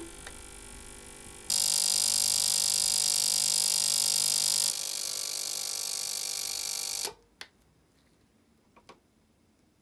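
Ultrasonic cleaner switched on with a button click, then running with a steady high buzz as its tank of cleaning solution cavitates around a brass stove part. The buzz jumps much louder about a second and a half in, eases slightly past the halfway point and cuts off suddenly, followed by a few faint clicks.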